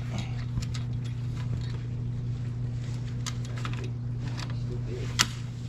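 Fishing reel mechanism clicking and ticking irregularly while a hooked fish is played, with one sharp click about five seconds in, over a steady low hum.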